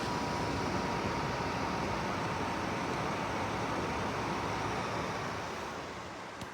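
Cecotec EnergySilence 790 Skyline tower fan running: a steady rush of air with a faint steady whine, easing off near the end, where a short click is heard.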